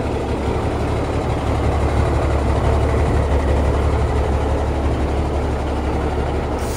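1979 Kenworth W900A's diesel engine idling steadily with a low rumble, warming up while its air compressor builds air pressure.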